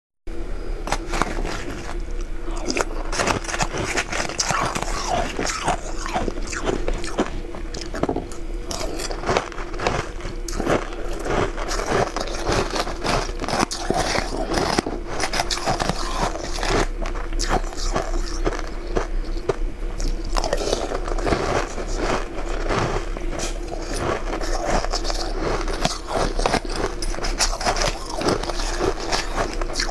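Close-up crunching and chewing of ice chunks, with a metal spoon scraping in a metal bowl. Dense crisp crackles throughout, over a steady low hum.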